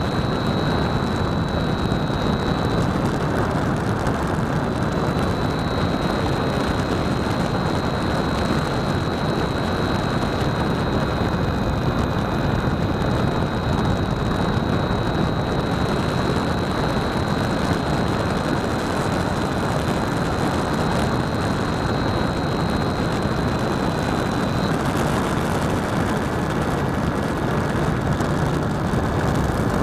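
RC airplane in flight, heard from a camera on its tail: a steady rush of wind over the microphone with the motor and propeller's thin high whine, which steps slightly in pitch a few times, once about 25 seconds in.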